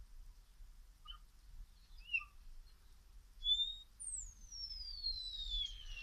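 Common starling calling: a few short chirps, then a long, clear whistle that glides steadily down in pitch for about two seconds near the end.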